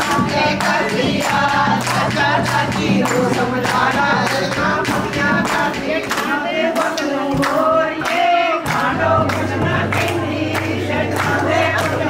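Group of voices singing a Punjabi song over a held low drone, with a steady beat of sharp strikes about three times a second; the drone thins out for a couple of seconds partway through and comes back lower.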